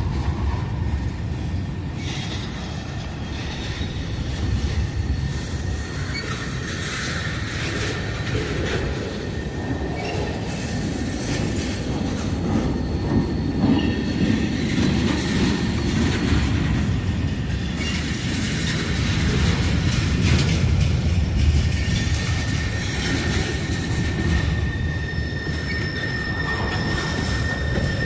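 CSX freight train's railcars rolling past: a steady rumble of steel wheels on the rails, with wheel squeal. Near the end a high squeal settles into a steady ringing tone.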